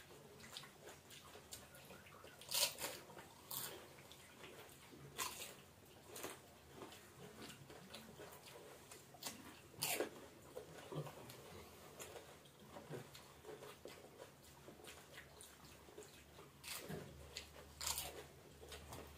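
Crisp pani puri (golgappa) shells crunching as they are cracked and bitten, with soft chewing in between. Irregular sharp crunches come every second or two, the loudest about halfway through and near the end.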